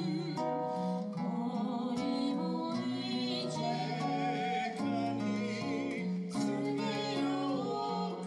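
A voice singing with vibrato over a strummed acoustic guitar.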